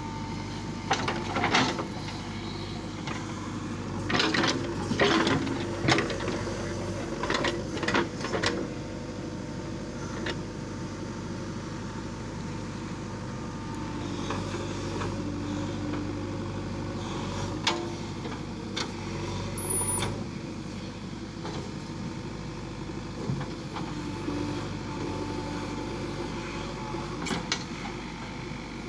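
JCB 3DX backhoe loader's diesel engine running steadily under hydraulic load while the backhoe digs a trench. Sharp clanks and knocks from the bucket and arm come in clusters in the first eight seconds or so, and a few more later on.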